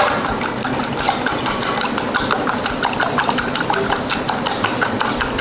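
Raw eggs beaten by hand in a stainless steel bowl, the utensil clattering against the metal in quick, even strokes, several to the second.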